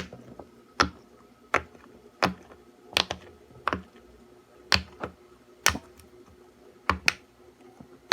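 Square silicone pop-it fidget toy having its bubbles pressed, giving sharp single pops about once a second.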